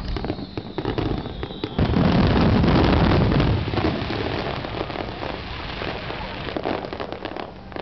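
Fireworks barrage: many shells bursting in quick succession, rising to a loud sustained roll of bangs about two seconds in. It then settles into dense crackling that slowly fades.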